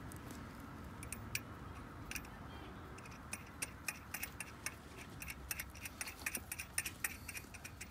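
Hand ratchet wrench clicking in quick, uneven runs, several clicks a second, starting about three seconds in, as a bolt on the intake mounting is run in.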